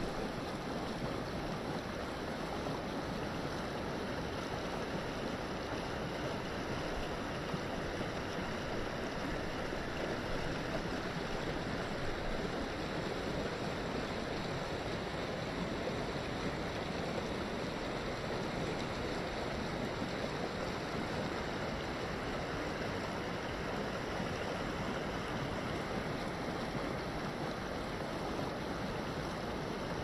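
Mountain trout stream's water running over rocks, a steady continuous rush with no breaks.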